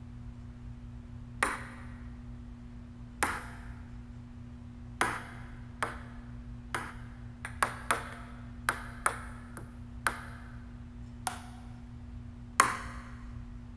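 A ping-pong ball striking hard surfaces: about fourteen sharp, irregular clicks, each with a short ring, several coming in quick succession around the middle and the loudest near the end, over a steady low hum.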